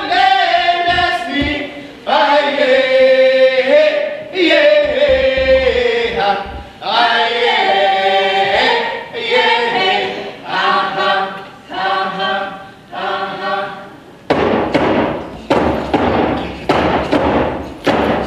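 A group of voices singing a traditional song together. About fourteen seconds in, hand drums come in with a steady beat of about two strikes a second under the singing.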